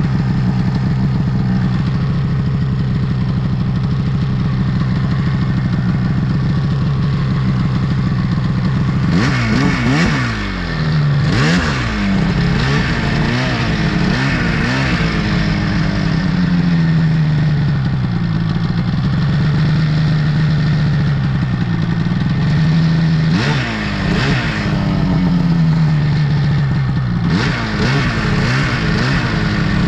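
Snowmobile engine running at a steady pitch for about nine seconds, then revving up and down again and again as the throttle is worked.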